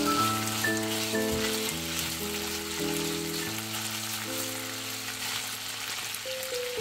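Strips of bacon sizzling as they fry in vegetable oil in a nonstick pan, stirred with a silicone spatula, with sliced onion tipped in near the end. Background music plays along with it.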